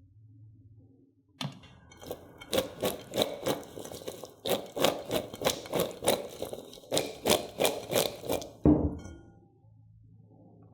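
Quick rhythmic knocks of a kitchen utensil on a hard surface, about three a second in three runs, ending with one heavier thud.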